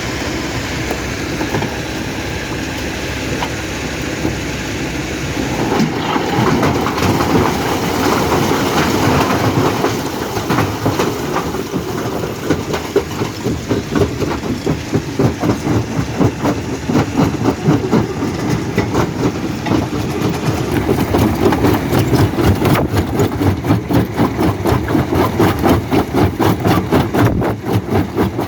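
Stone-crushing machine running, a steady heavy mechanical rumble. About six seconds in it turns into a louder, rhythmic pounding of rock being crushed, settling near the end into a regular beat of about three pulses a second.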